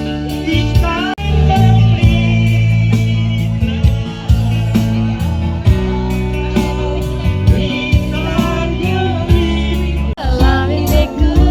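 Music playing with a singing voice over a strong bass line and guitar.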